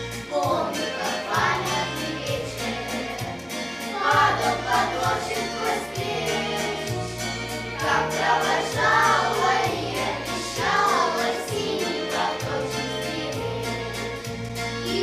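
A group of children singing a song together over a backing track with a steady beat and a stepping bass line.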